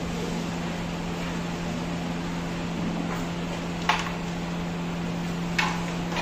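Carrom striker flicked across the board, with a sharp wooden click about four seconds in as it strikes the carrom men and a smaller click a second and a half later. A steady low hum runs underneath.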